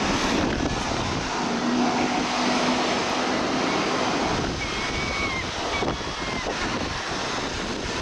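Steady seafront wind and surf noise with wind buffeting the microphone. A low steady hum sounds for about two seconds near the start, and a few faint high chirps come about halfway through.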